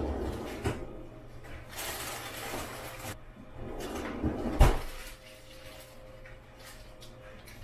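Rummaging in a refrigerator's bottom freezer drawer: frozen, plastic-wrapped packages rustle and knock, then the drawer is pushed shut with a hard thump about four and a half seconds in.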